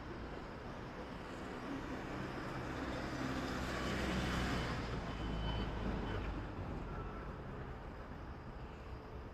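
A road vehicle passing by: a low rumble with tyre and road noise that rises to a peak about four seconds in and then fades away.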